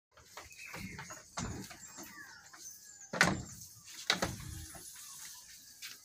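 A buck goat moving about its raised wooden pen: a few knocks on the wooden boards, the loudest about three seconds in, with birds chirping in the background.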